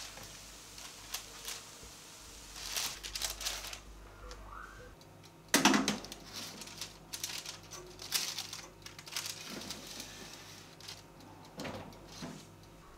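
Kitchen handling sounds: parchment paper rustling, then a sharp metallic clunk about five and a half seconds in as a pastry on its tray goes into a small countertop toaster oven. Scattered clicks and knocks of the tray and oven door follow, ending as the oven door is shut.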